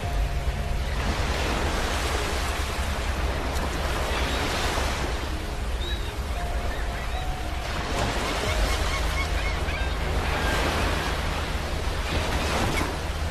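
Ocean waves breaking and washing ashore, the surf swelling and easing about every three seconds.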